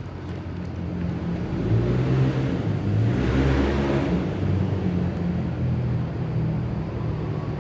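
A motor vehicle's engine running, growing louder and peaking about three to four seconds in.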